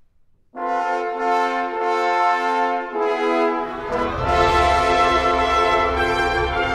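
Symphonic wind band: after a near-silent pause, the brass come in together on a loud, held chord about half a second in. Around four seconds in, the low brass and the rest of the band join for a fuller, heavier chord.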